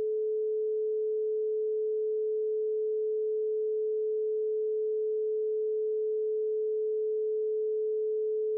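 A pure 432 Hz sine tone held steady and unchanging, with no overtones.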